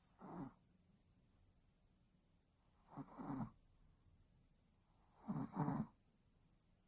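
Yorkshire terrier snoring in its sleep: three snores about two and a half seconds apart.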